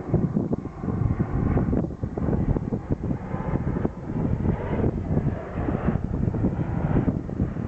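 Airliner engines rumbling, partly masked by wind buffeting the microphone.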